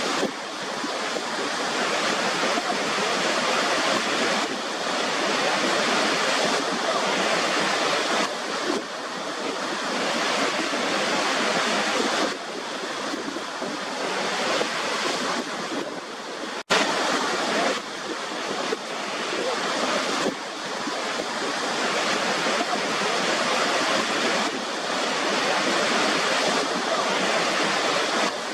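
Waterfall water rushing steadily, a continuous hiss-like roar that swells and eases slightly every few seconds, with a brief cut-out about two-thirds of the way through.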